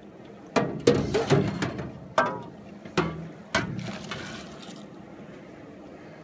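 A quick run of sharp metal clanks and knocks over about three seconds, one ringing briefly. The sound is a metal cup striking the steel pan of a maple sap evaporator as it scoops boiling syrup for a hydrometer test.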